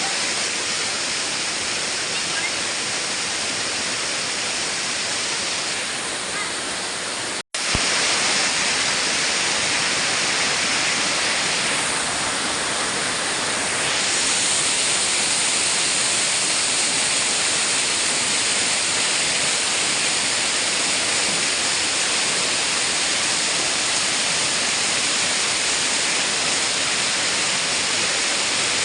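Waterfall rushing steadily, with a sharp cut about a quarter of the way through, after which the rush is slightly louder.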